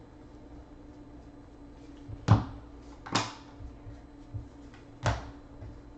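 Baseball trading cards being handled and flipped through a stack by hand, giving three sharp clicks of card edges a little over two, three and five seconds in, with a few fainter ticks between, over a faint steady hum.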